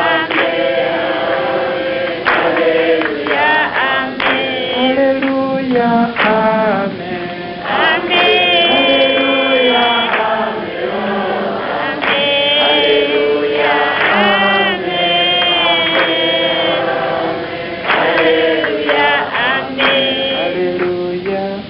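A congregation singing and chanting praise together: many voices at once, with high voices rising clearly above the rest at times.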